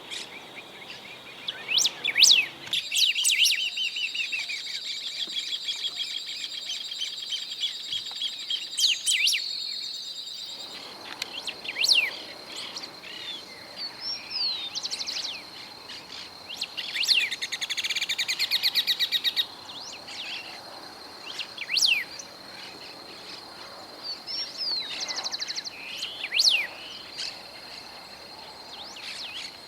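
Golden-billed saltator singing: short whistled phrases repeated every few seconds, with a rapid trilled phrase near the middle, over a steady high-pitched hum.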